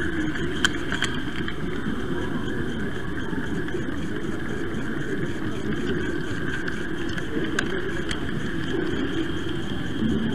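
Steady rolling rumble of a model train running along the track, picked up close by a camera riding on the train, with a few brief sharp clicks.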